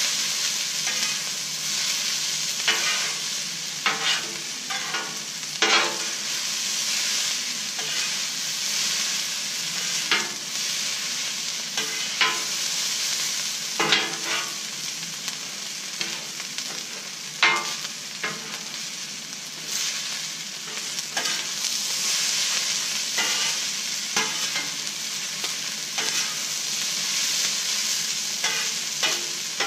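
Fried rice with chicken and vegetables sizzling on a Blackstone flat-top griddle, with metal spatulas scraping and clacking against the steel plate at irregular intervals as the food is tossed.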